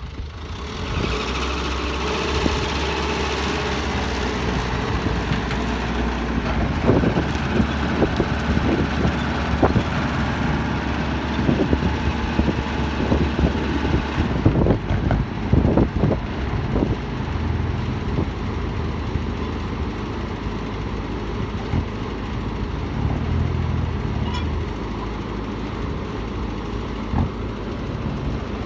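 Excavator diesel engine running steadily under load, with a run of knocks and clatters in the middle.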